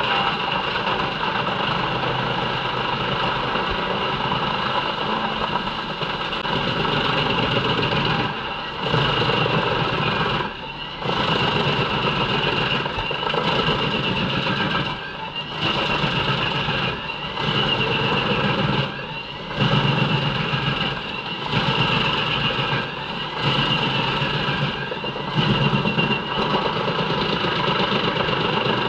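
JENZ HEM 593-R truck-mounted drum chipper running under load, chipping poplar logs fed by its crane, with a steady high whine over the machine noise. The noise dips briefly and comes back again and again, every two seconds or so in the second half.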